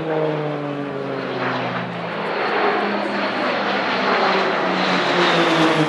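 Pilatus PC-9/A turboprop aerobatic aircraft flying past, the propeller and engine drone falling in pitch as they go by. A broad rushing engine and airflow noise then builds, loudest near the end.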